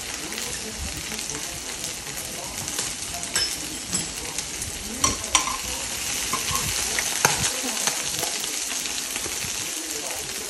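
Beef and vegetables sizzling steadily in a frying pan on a portable butane gas stove, with a few sharp clicks in the middle of the sizzle as chopsticks turn the food against the pan.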